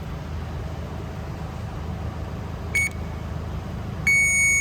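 Continuity-tester beep across a fuse that tests good: one short high beep about three seconds in, then a steady beep that starts near the end and holds. A steady low hum runs underneath.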